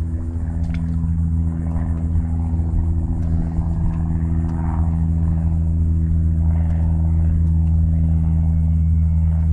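Suzuki outboard motor idling steadily with an even low drone.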